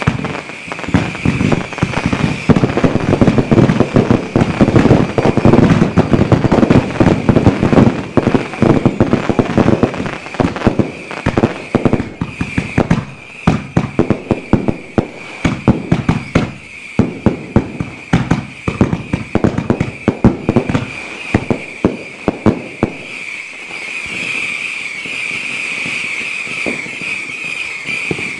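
Ground firework fountains going off: dense, rapid crackling and popping for about twenty seconds, thinning to scattered pops near the end, over a steady high-pitched hiss.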